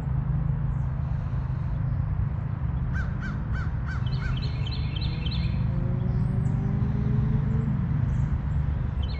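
Steady low rumble of nearby road traffic. About three seconds in, a bird calls five quick notes, followed by a run of higher chirps.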